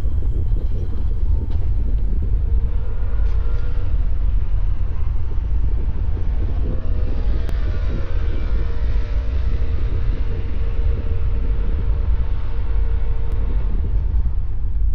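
Loud, steady low rumble of a large oil storage-tank fire burning, heard from afar.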